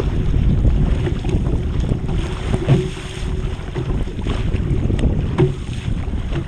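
Wind buffeting the microphone of a camera on a kayak at sea, with water splashing against the boat and a few short knocks from paddling.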